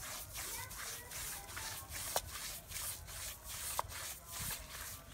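Stiff-bristled push broom scrubbing a wet rug on a concrete floor in quick back-and-forth strokes, about two or three a second, with two sharp clicks along the way.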